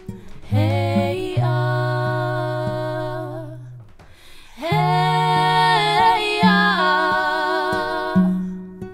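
Two female voices singing long held notes in harmony, in two drawn-out phrases, over steady low sustained notes.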